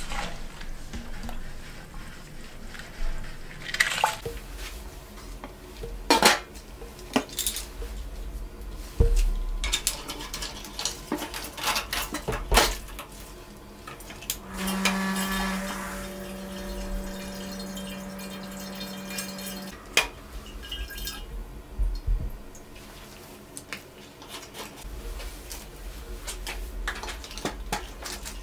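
Stainless steel Grainfather brewing kettle and its parts knocking and clinking as they are scrubbed and handled during cleaning. About halfway in, a steady hum runs for about five seconds as the recirculation pump pushes cleaning water through the pipe.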